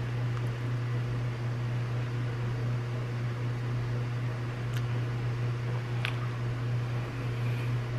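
Steady low hum with an even hiss of room noise, and two faint ticks about five and six seconds in.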